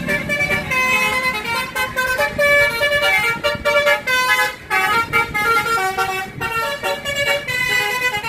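A bus's 'basuri' telolet horn, a multi-tone musical air horn, playing a quick melody of stepping notes, with a brief break about four and a half seconds in.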